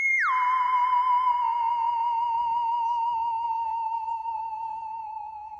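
Dubbed-in cartoon sound effect: a high, whistle-like tone drops sharply in pitch about a quarter second in, then sinks slowly with a wavering vibrato and fades toward the end.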